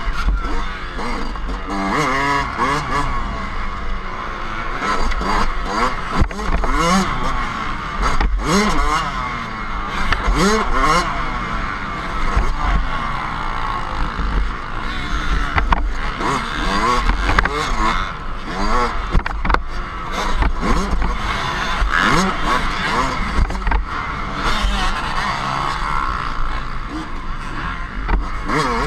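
Dirt bike engine heard from an onboard camera, revving up and falling back again and again as the rider accelerates and shifts, with a steady low wind rumble on the microphone.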